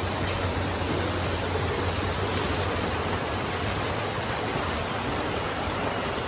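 O gauge model trains running on a large layout, giving a steady rolling rumble and hiss with a low hum underneath.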